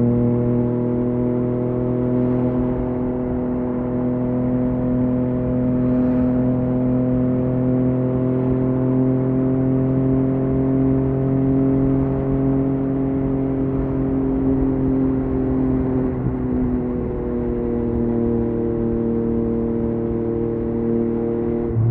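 Yamaha MT-09's three-cylinder engine through an Akrapovic exhaust, running at a steady cruising speed. Its pitch rises slightly over the first half, then eases lower from about two-thirds of the way in.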